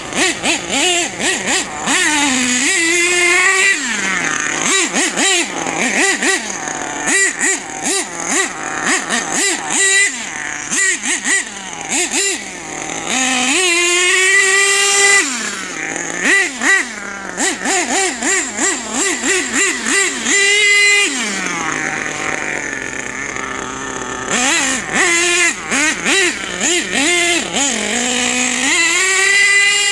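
Small two-stroke nitro engine of an HPI Savage X 4.6 RC monster truck, revving up and falling back again and again as it is driven: many quick throttle blips, with a few longer runs held at high revs.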